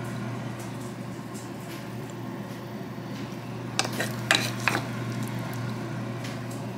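Wooden spoon stirring and scraping cooked ground meat in a small pan, with a few sharp knocks of the spoon against the pan a little past the middle. A steady low hum runs underneath.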